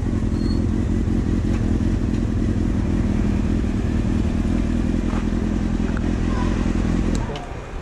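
Motorcycle engine running steadily while the bike rolls slowly, heard from the bike itself. The engine sound stops abruptly near the end.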